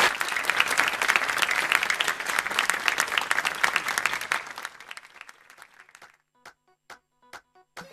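Studio audience applauding, dense at first, then thinning and dying away over about five seconds. Near the end a few short, spaced musical hits sound as the show's music starts.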